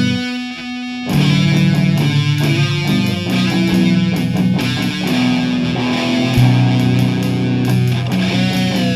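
Rock music with distorted electric guitar.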